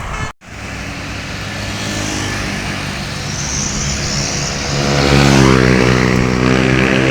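Roadside traffic noise after a brief cut in the sound; about five seconds in, a bus's diesel engine drone comes up loud and steady as it draws near.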